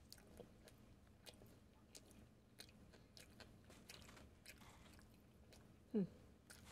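Close, quiet chewing of a crispy fried chicken sandwich, with many small crunches and clicks. About six seconds in comes one brief, louder sound that falls in pitch.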